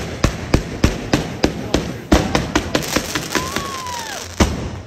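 Fireworks going off in a rapid series of sharp bangs, about three to four a second, with a louder bang near the end. A short whistle that bends down in pitch sounds in the second half.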